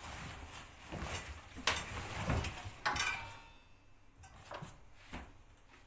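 Fabric bags rustling and knocking against the drum of a front-loading washing machine as they are pushed in by hand, with a few sharp knocks in the first three seconds, then quieter handling.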